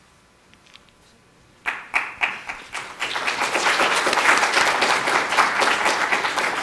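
A short quiet pause, then a few scattered claps that quickly build into steady audience applause.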